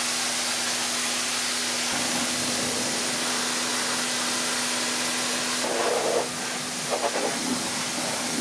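Pressure washer spraying a steady jet of water onto a muddy truck's tyre and wheel well: an even hiss of spray with a steady low hum underneath. The splashing changes a little past halfway as the jet moves over the tyre.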